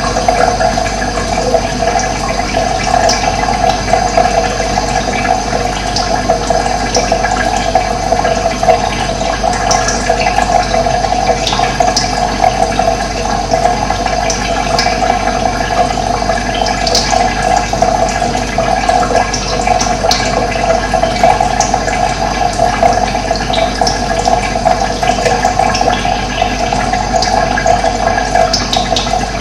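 Running water, a steady, unbroken rush, with occasional short bird chirps over it.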